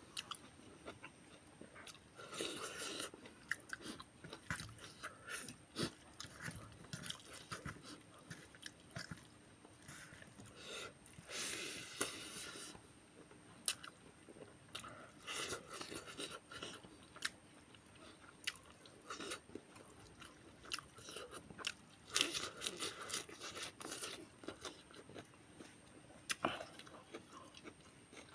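A person chewing and biting food, with crunchy bites and many irregular short clicks.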